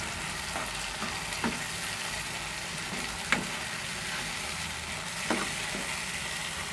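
Blended chilli spice paste sizzling as it fries in oil in a nonstick wok, stirred with a metal spatula, with a few sharp clicks of the spatula against the pan.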